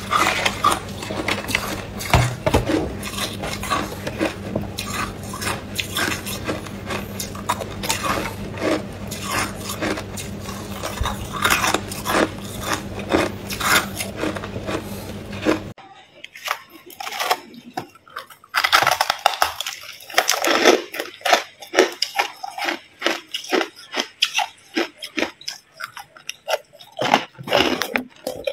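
Hard ice being bitten and chewed close to the microphone: a dense run of crunches and cracks over a low steady hum. About two-thirds of the way through the sound cuts abruptly to sparser, separate crunches of crushed white ice being chewed.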